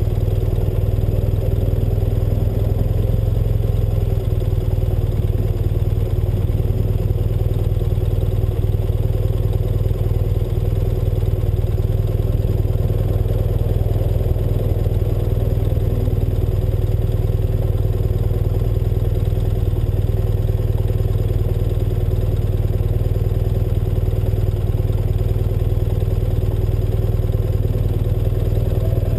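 1984 BMW R100RS air-cooled flat-twin (Airhead boxer) engine idling steadily while the motorcycle stands still.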